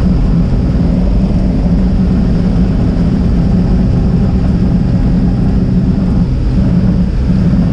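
Small single-engine propeller plane's engine and propeller running, heard from inside the cabin as a loud, steady drone.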